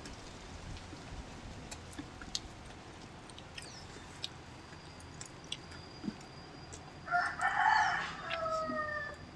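A rooster crows once, about seven seconds in: a harsh call lasting roughly two seconds that trails off into falling notes. Before it, there are faint clicks and smacks of people eating by hand.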